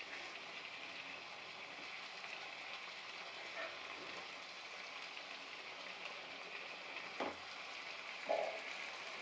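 Diced snake gourd and dal frying in a pan with a steady sizzle, while a wooden spatula stirs them and knocks against the pan three times, loudest near the end.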